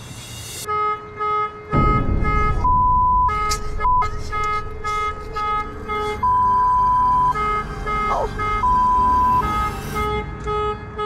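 Car alarm going off, set off by someone sitting on the key fob: quick repeating beeps of about two or three a second, broken several times by longer held tones as it cycles through its patterns. A low rumble runs underneath from about two seconds in.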